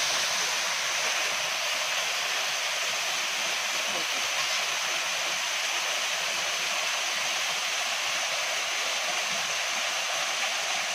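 Small waterfall pouring down a rock face into a pool: a steady rush of falling water. The falls carry little water, it not being the rainy season.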